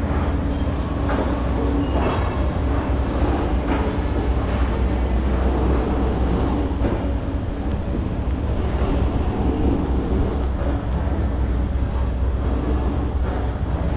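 Steady low rumble of city traffic going by, with a few faint clicks over it.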